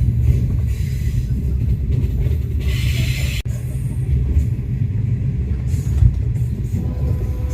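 Diesel-hauled passenger train running along the track, a steady low rumble with a short hiss about three seconds in.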